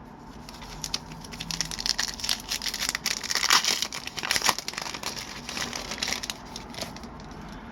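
Crinkling and tearing of a hockey card pack's wrapper being opened by hand, with a dense run of crackles through the middle.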